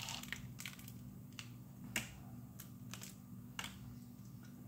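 Sparse sharp clicks and crackles, about half a dozen, from hands handling cleaned blue crab and a plastic zip-top bag.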